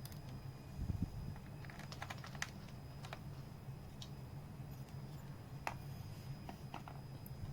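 Light clicks and taps at irregular intervals, bunched about two seconds in and again near the end, over a steady low hum and a faint high whine.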